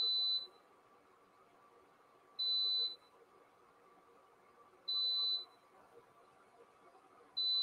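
Countertop induction cooktop beeping: one short high beep every two and a half seconds, four times. It is switched on with no pan on it, the warning such a hob gives when it detects no cookware.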